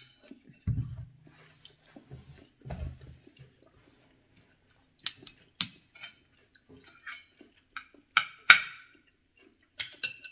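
Metal fork and spoon clinking and scraping against ceramic bowls and a plate, several sharp clinks, the loudest pair a little past the middle. A few low dull thuds in the first three seconds.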